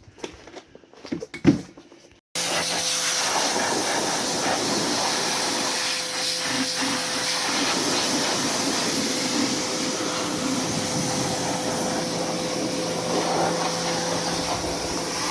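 A few faint knocks, then about two seconds in a machine moving air starts abruptly: a loud, steady rush of air over an even motor hum, unchanged throughout.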